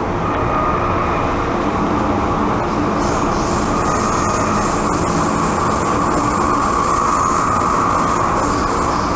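MTR M-train electric multiple unit running, heard from inside the carriage: a steady rumble of wheels and running gear with a high whine, and a higher hiss joining about three seconds in.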